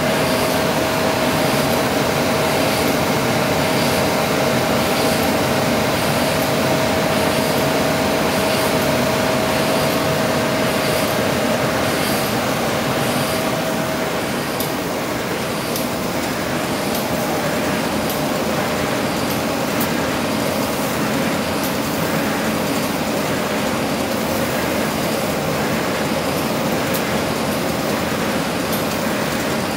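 Tymi Octans-126X OPP laminating machine running: a steady mechanical drone with a constant tone that fades about halfway through and returns near the end, over faint, fairly regular ticks.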